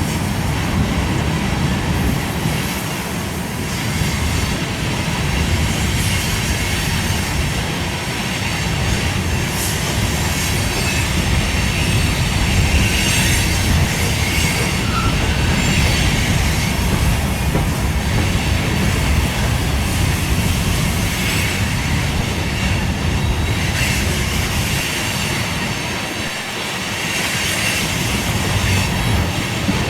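A freight train's cars rolling past, with a steady rumble, clicking over the rail joints, and higher wheel squeals that come and go. Strong wind buffets the microphone.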